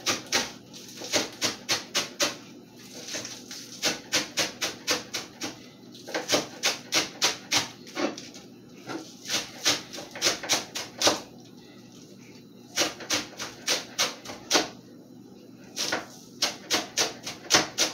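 Knife chopping green onions on a cutting board: runs of quick, even chops, about three to four a second, broken by several short pauses.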